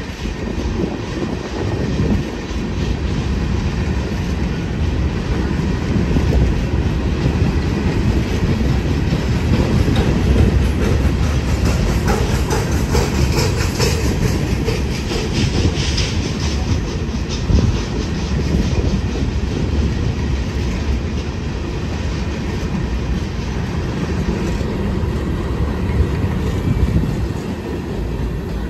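Freight train's hopper cars rolling past close by: a steady low rumble of steel wheels on rail with clickety-clack over the rail joints, sharpest about halfway through.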